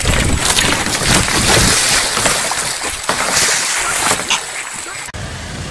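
Water splashing and sloshing around a kayak with wind on the microphone, cutting off abruptly about five seconds in.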